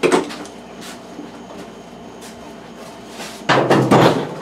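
Hollow knocks and clatter from a plastic ice chest being handled and carried: a single bang at the start, then a quick cluster of bangs about three and a half seconds in.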